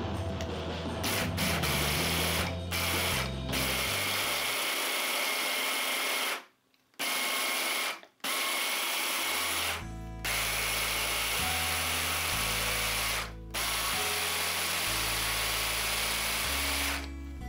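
Electric hand blender with a chopper bowl attachment whirring as it grinds basil leaves in olive oil into a paste. It runs in several long stretches broken by a few brief stops, with background music underneath.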